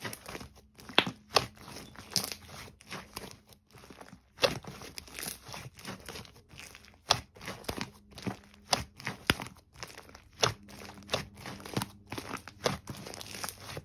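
Play sand being handled and pressed into a pretend rice dish: irregular crunching and crinkling with scattered sharp clicks.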